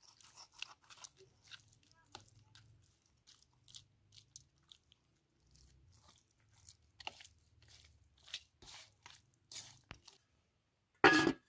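Onion being grated on a metal box grater, a run of short, irregular rasping strokes, with the wet squish of raw chicken pieces being turned by hand in a metal bowl. A short, louder noise comes near the end.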